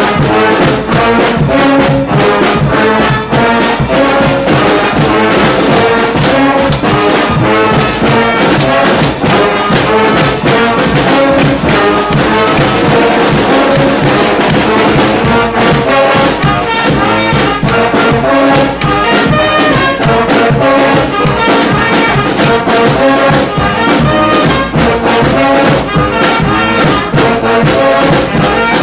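Street brass band playing a New Orleans-style brass-band tune together: horns over a steady drum beat.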